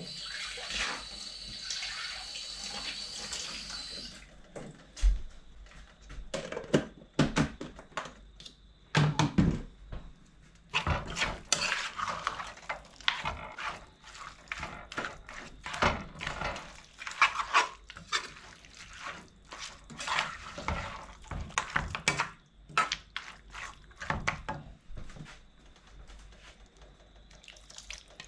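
Water running from a kitchen tap for about four seconds, then a long run of irregular clinks and knocks of dishes, pots and utensils being handled at a sink.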